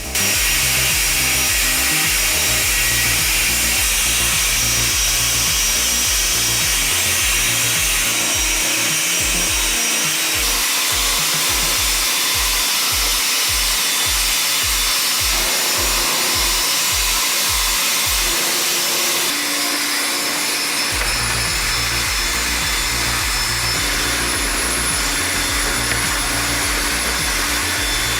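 Industrial wood-processing machinery running with a steady hiss, under background music with a pulsing bass beat. The machine sound changes character about 19 seconds in.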